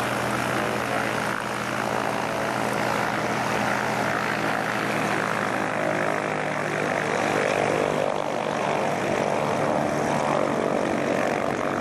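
Propeller airplane piston engine running with a steady drone.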